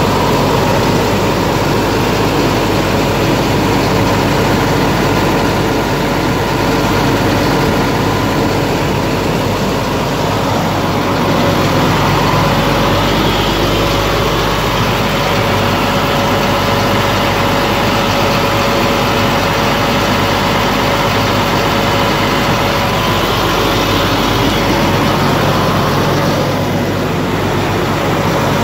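Tow truck's engine idling steadily, a constant heavy running sound with a faint steady whine.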